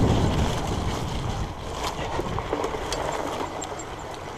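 Riding noise from a Surly Moonlander fat bike rolling over grass: wind buffeting the handlebar camera's microphone over the rumble of the fat tyres, with light clicks and rustles. The rumble gradually dies down.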